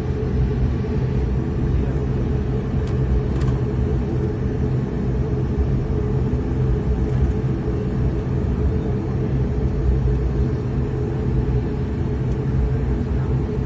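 Turboprop airliner's engines and propellers heard from inside the cabin while taxiing: a loud, steady low rumble with a constant hum.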